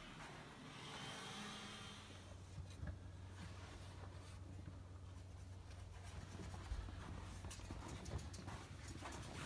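Faint low steady hum that starts about a second and a half in, with scattered light clicks and rubbing, like footsteps and handling of the camera, growing more frequent toward the end.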